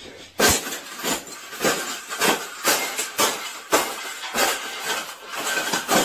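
Wire bird cage being jumped on and stomped flat under boots, a string of sharp crunching impacts about twice a second as the wire bends and folds.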